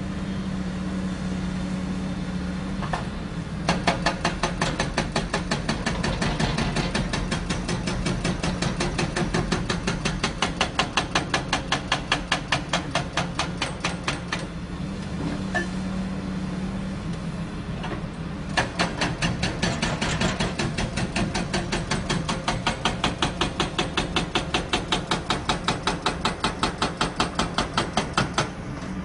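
Hydraulic breaker hammer on a Caterpillar excavator pounding in rapid, even blows in two long bursts, with a pause of about four seconds midway. The excavator's diesel engine runs steadily underneath.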